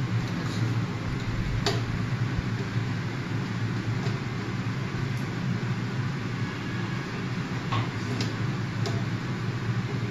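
Steady hum of a benchtop clean bench's blower fan, with a few light clicks of small tools on an opened hard drive: one about two seconds in and two more around eight to nine seconds.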